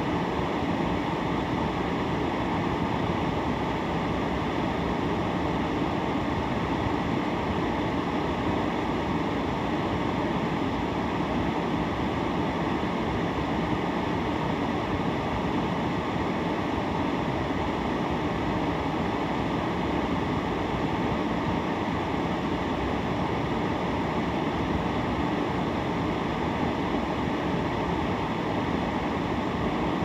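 Steady rushing noise inside the cabin of a car sitting stopped in traffic at a red light.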